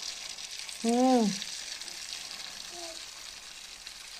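Jalebi batter frying in hot oil in a kadhai: a steady, hissing sizzle. About a second in, a short voice sound rises and falls over the frying.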